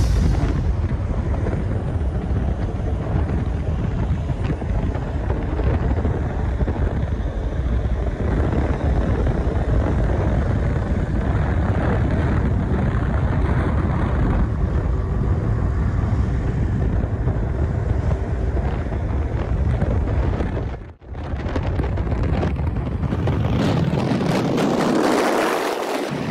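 Steady rush of road and wind noise from a moving vehicle on wet asphalt: tyre hiss and wind buffeting the microphone. It cuts out briefly about three-quarters of the way through, and a louder rush swells near the end.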